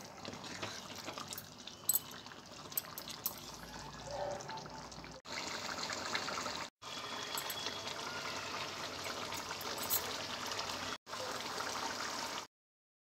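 Chicken pulusu (curry) simmering in a pot on the stove, a steady bubbling hiss. A wooden spoon stirs it with small clicks for the first few seconds. The bubbling gets louder about five seconds in, breaks off briefly twice, and stops abruptly near the end.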